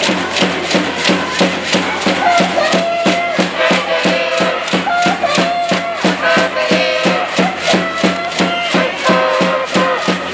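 Music with a fast, steady beat of about four strikes a second and a held melody stepping over it.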